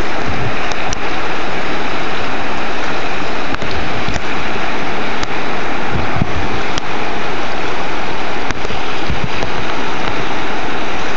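Whitewater of a river rapid rushing steadily, loud and close, with a few light clicks scattered through.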